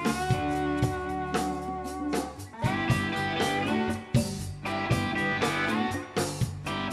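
Live rock band playing: electric guitars holding and bending notes over a drum kit.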